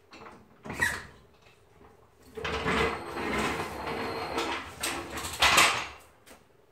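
Floor jack being let down and rolled out across a concrete garage floor: a sharp metal knock about a second in, then a steady rolling, scraping noise for about four seconds.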